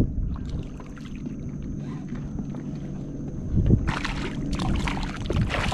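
A small fish splashing and thrashing at the water surface as it is released beside the boat: a burst of splashing starts a little past the middle and lasts about two seconds, over a steady low rumble.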